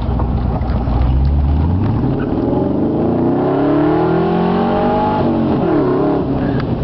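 Morgan V8 engine idling, then revved up over about three seconds and let fall back quickly, with a short blip of the throttle near the end.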